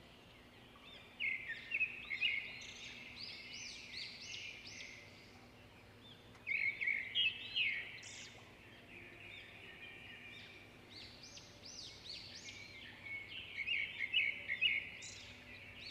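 Small birds chirping and twittering: many quick high chirps in clusters, busiest about a second in, around seven seconds in, and again from about eleven seconds.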